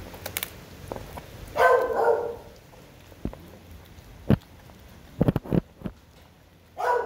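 A dog barks twice, once about a second and a half in and again near the end. A few sharp clicks or cracks come between the barks.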